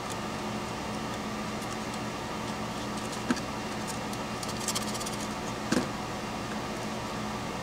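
A few small, sharp metal clicks and taps of a screwdriver at work on screws in an aluminium bracket, three of them standing out a second or so apart, over a steady low hum.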